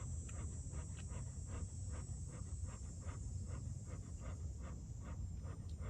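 Dog panting steadily, about three quick breaths a second. The owner says he is panting from eagerness to get to her food, not from heat, exhaustion or thirst.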